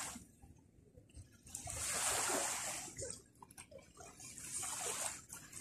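Small waves washing in on a beach: two swells of surf a couple of seconds apart, each rising and falling away.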